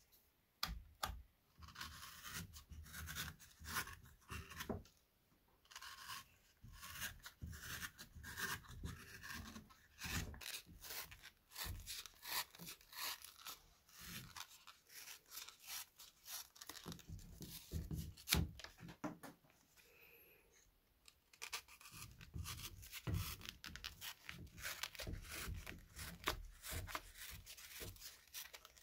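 Knife blade trimming the excess leather off the stitched seam of a leather knife sheath: a run of short scraping, tearing cuts with a brief pause about two-thirds of the way through.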